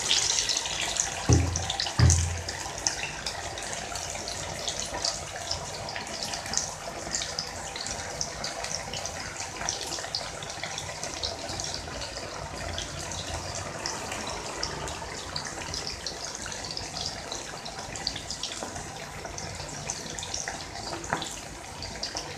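Marinated chicken pieces deep-frying in hot oil in an iron kadai: a steady bubbling sizzle with dense fine crackle. Two dull knocks come about a second and two seconds in.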